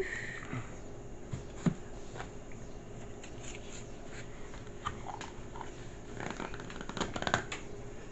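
Soft, scattered pats of a baby's bare hands on a tile floor as she crawls, with a cluster of them near the end.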